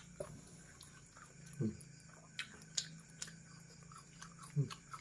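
People eating: a handful of soft chewing and lip-smacking clicks with a couple of brief low mouth sounds, over a faint steady hum.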